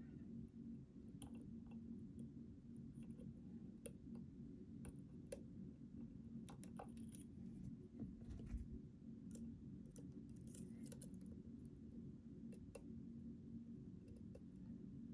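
Faint, irregular clicks and scrapes of a lock pick and tension tool working the pins inside a Schlage Primus Everest lock cylinder, over a low steady hum.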